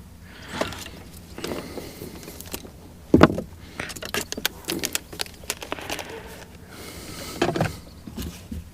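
Scattered clicks, rattles and knocks of small hard parts being handled, as of a boat's remote control box being worked on, with one louder knock about three seconds in.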